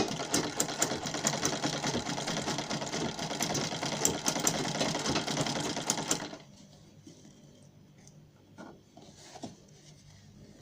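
Sewing machine stitching fast and steadily, sewing down an invisible zipper close to its teeth; it starts abruptly and stops about six seconds in, leaving only faint handling sounds of the fabric.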